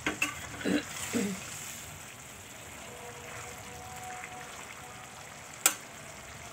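Intestines in a thick yellow spice sauce sizzling in a stainless frying pan while a metal spatula stirs and scrapes through them, several strokes in the first second and a half; one sharp knock about five and a half seconds in.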